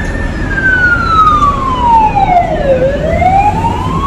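Ambulance siren sounding a slow wail: one long tone that slides down for about three seconds, then climbs back up, over road noise.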